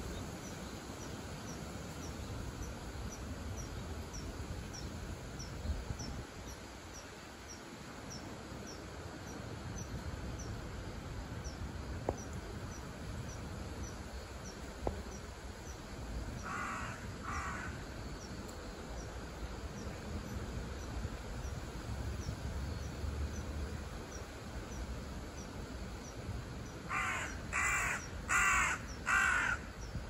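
A crow cawing: two harsh caws about halfway through and four more near the end. Under them runs a steady low rumble and a faint high tick repeating about one and a half times a second, like an insect calling.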